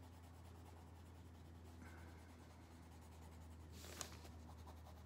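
Faint scratching of a Prismacolor colored pencil shading on paper, over a low steady hum, with a single click about four seconds in.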